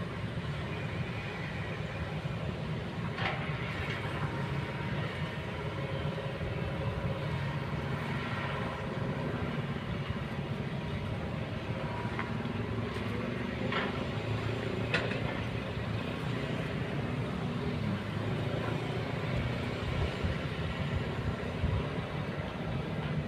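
Kobelco hydraulic excavator's diesel engine running steadily under working load, with a hydraulic whine that shifts in pitch. A few sharp metallic knocks sound through it.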